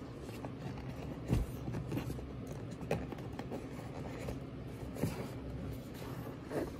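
Hand rubbing and handling a cardboard product box, with four short knocks about a second and a half apart, the first the loudest, over a steady low rumble.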